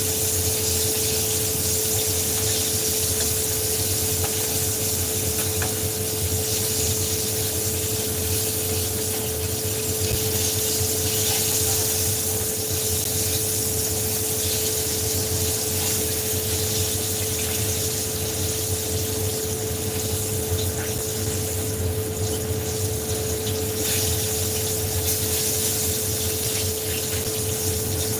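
Chicken frying in hot oil, a steady sizzle, over a constant hum.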